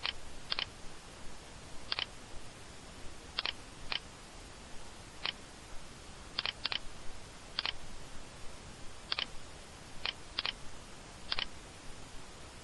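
Computer mouse clicking about a dozen times at irregular intervals, some clicks in quick pairs, over a steady hiss.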